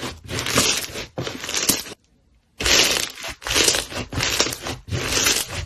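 Slime being squeezed and kneaded by hand: a series of crackly, squishy squeezes about once a second, broken by a short silence about two seconds in.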